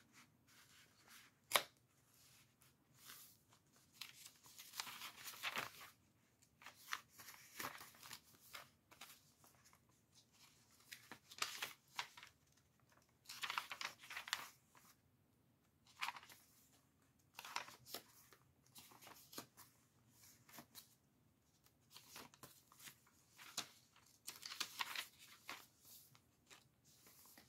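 Paper pages of a handmade junk journal being turned and handled: short rustles and swishes every few seconds, with one sharp click about one and a half seconds in.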